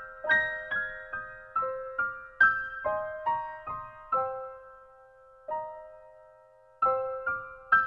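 Background piano music: a gentle melody of single struck notes, each ringing and fading, that slows to two long-held notes near the middle before picking up again.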